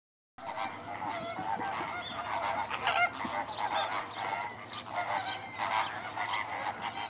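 A flock of greater flamingos honking, many calls overlapping in a dense chorus. It starts abruptly about half a second in.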